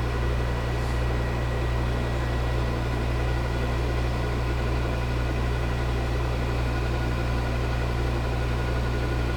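Metal lathe running steadily with a low, even hum during a light hand-fed facing cut on an aluminium slug.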